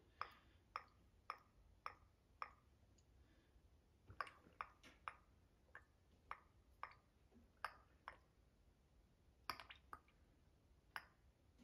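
Drops of isopropyl alcohol falling from a squeeze bottle into a homemade can penny stove as it is topped up to overfilling: a string of faint, sharp plinks, about two a second at first, then spaced irregularly.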